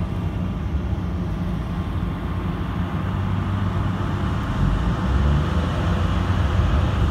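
Boat underway: steady low engine rumble mixed with wind and water noise, a little louder in the second half.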